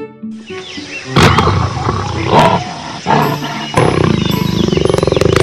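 Big cat growling and snarling in several loud bursts starting about a second in, then running into a continuous rattling growl.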